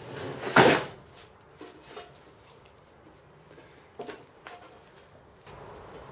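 Wide electrical insulation tape pulled off the roll with one short, loud rip, followed by faint handling clicks as it is wrapped around a plasma torch hose.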